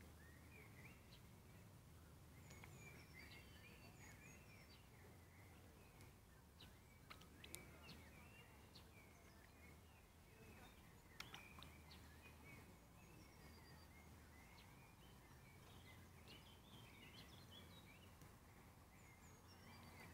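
Faint small birds chirping and twittering again and again over a low background rumble, with two sharp clicks, one about seven seconds in and one about eleven.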